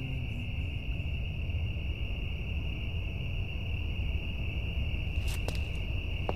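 Crickets trilling steadily over a low rumble of night ambience, with a couple of faint clicks near the end.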